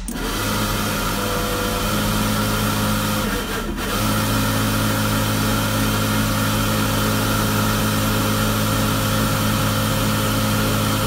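Inline duct fan switching on as its lead is tapped onto power, then running with a steady hum and rush of air. It falters briefly about three and a half seconds in, then runs on steadily.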